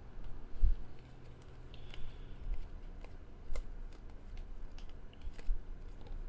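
A stack of Topps Chrome baseball cards picked up and flipped through by hand: scattered light clicks and ticks as the cards slide over one another, with a duller thump just under a second in.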